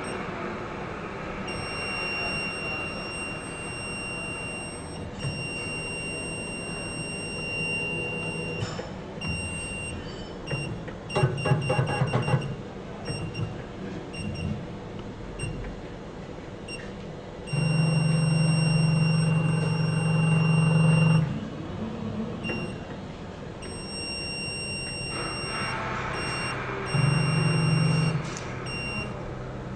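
Stepper motors of a desktop XYZ gantry robot running as its axes move, in three bursts of a loud low hum: a short one about a third of the way in, a longer one of nearly four seconds past the middle, and a short one near the end. A thin, steady high whine keeps breaking off and coming back, and a quick run of clicks comes with the first burst.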